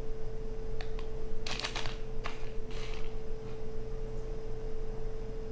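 Light taps and crinkles of foil instant green tea stick packets being handled and set down on a countertop, in a few small clusters of quick clicks, over a steady hum.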